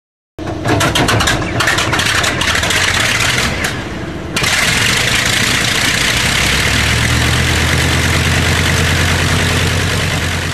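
Aircraft piston engine starting: it sputters and fires unevenly for about four seconds, then catches and runs steadily and loudly.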